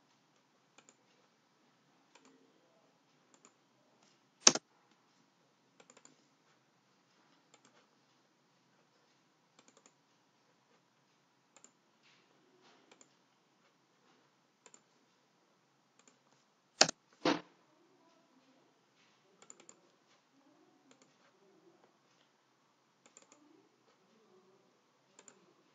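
Computer keyboard and mouse clicks: many faint scattered clicks, with one sharper click about four seconds in and a close pair of sharper clicks near seventeen seconds.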